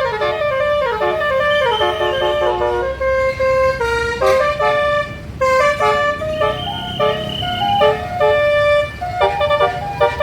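Tourist bus's basuri (telolet) musical horn playing a melody of quick stepped notes, with fast downward runs in the first few seconds and some longer held notes later, over a low rumble.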